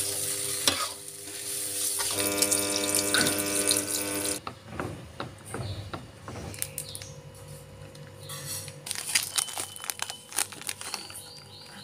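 Noodles sizzling in a hot wok with the spatula scraping and clinking, cutting off suddenly about four seconds in. Quieter clicks and crinkling of plastic sachets follow, over soft background music.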